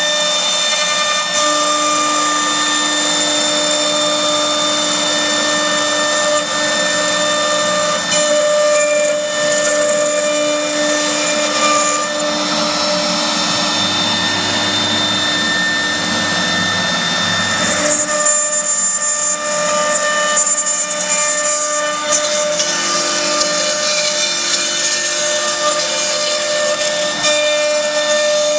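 CNC router spindle running with a steady high whine while the bit cuts a workpiece; about two-thirds of the way through, the cutting noise turns brighter and the lower hum drops away as the cut changes.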